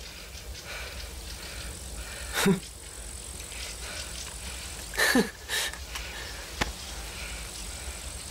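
Two brief men's vocal sounds, a grunt and a chuckle, each falling in pitch, about two and a half and five seconds in, over a steady low hum. A single sharp click comes a little after the second.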